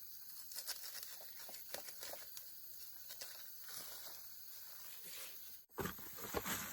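Faint rustling with scattered light clicks and taps over a steady high hiss. Near the end the sound cuts off abruptly and a louder, fuller noise begins.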